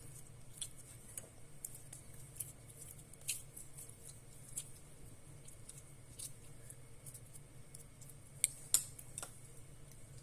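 Slime-like fruit gel being squeezed and pulled by fingers, making small irregular clicks and pops, with two louder pops about three-quarters of the way through.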